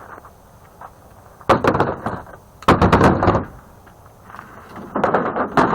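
Three short bursts of rattling, clanking clatter from scrap metal parts being handled and set down, the last one near the end.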